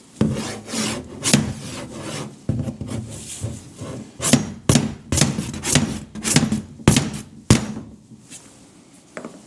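Hand work on wood: repeated uneven scraping and rubbing strokes, with a few sharp knocks in the second half.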